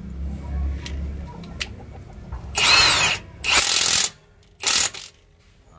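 Milwaukee 2767 M18 Fuel half-inch high-torque cordless impact wrench hammering on a truck wheel nut with a 41 mm socket, in three short bursts about two and a half, three and a half and four and a half seconds in. The first burst opens with a rising whine as the motor spins up.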